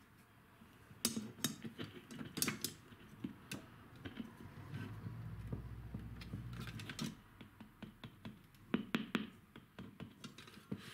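Irregular clicks, taps and knocks from handling and tapping the electronic kick drum pad and its piezo trigger, with a low steady drone for a couple of seconds around the middle.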